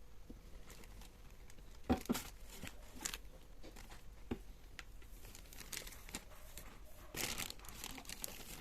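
Plastic packaging crinkling and rustling as it is handled, with scattered small handling clicks. The loudest knock comes about two seconds in, and a longer rustle about seven seconds in.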